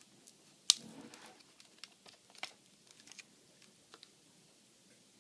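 Sharp clicks and small snaps of a tool prying at a laptop's plastic screen bezel, the loudest a little under a second in, then a scatter of lighter ticks.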